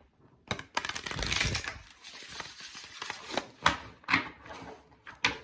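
Tarot cards being shuffled by hand: a dense run of rapid card flicks lasting about a second, then several separate snaps and slides of cards.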